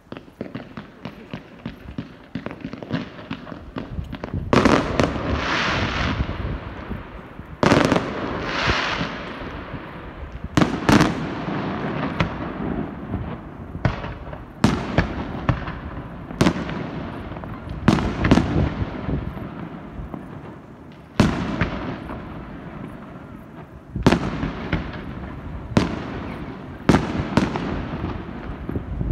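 Aerial fireworks bursting in a steady barrage: a sharp bang every second or two, several followed by a lingering crackling rush as the shell's stars spread out.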